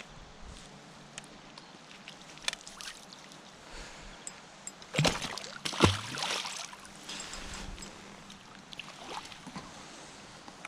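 Water lapping and trickling, with scattered small clicks and two sharp knocks and splashes about halfway through.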